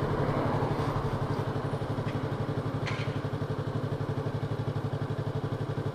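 Yamaha YZF-R3's parallel-twin engine running steadily at low revs, an even pulsing beat with no rise or fall in pitch.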